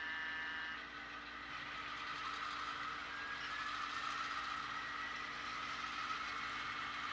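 Sound-equipped HO scale model diesel locomotives throttling up from idle: the engine sound builds and rises slightly in pitch, spooling up before the simulated air brakes are released for departure.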